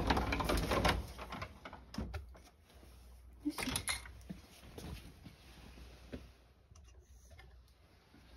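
Handheld camera and person moving about: rustling handling noise for about the first second, then a few scattered soft knocks and clicks.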